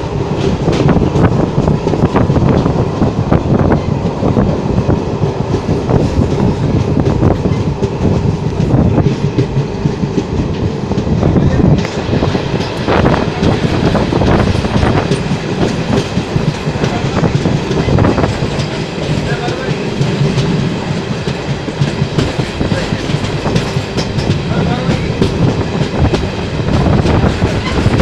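Passenger train coach running at speed, heard from its open doorway: a steady rumble of wheels on rail with irregular clacks over the rail joints throughout.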